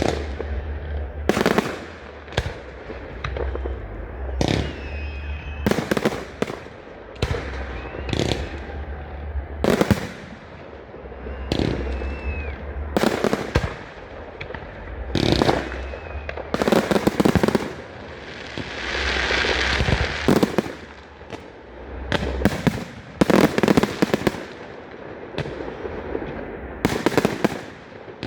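Fireworks display heard from close by: a long irregular series of loud shell bursts, each a sharp bang. A few short whistles rise between the bangs, and a fizzing hiss swells for a couple of seconds past the middle. Near the end the bangs come in a rapid cluster of crackling reports.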